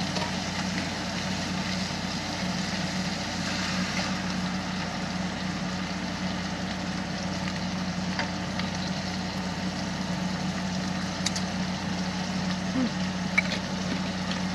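Small window air conditioner running steadily: a constant hum with fan rush, with a few faint clicks.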